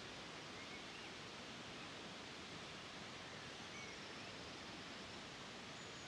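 Steady, faint outdoor nature ambience: an even rushing hiss, with a few faint, short, high bird chirps.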